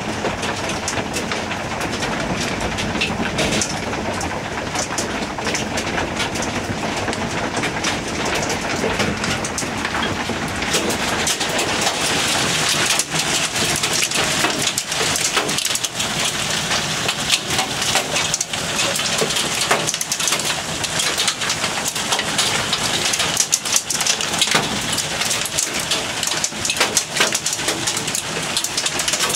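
Hail and rain pelting down in a storm: a dense, steady rush of sharp individual hits that grows thicker and brighter from about eleven seconds in.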